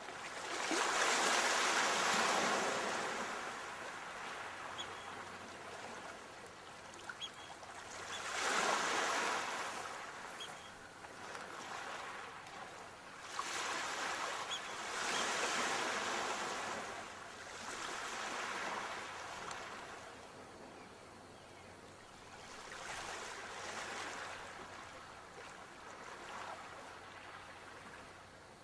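Sea waves breaking on a shore and washing back, in slow swells about every five to seven seconds, the loudest just after the start.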